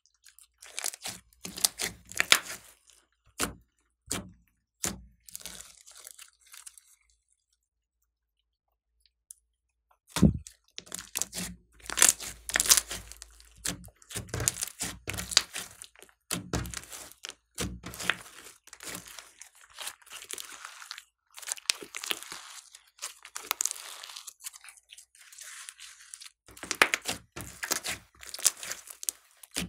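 Hands folding, pressing and squeezing glossy slime, with trapped air crackling and popping in quick irregular clicks. There is a quiet pause of about three seconds about a third of the way in, and the crackling is denser after it.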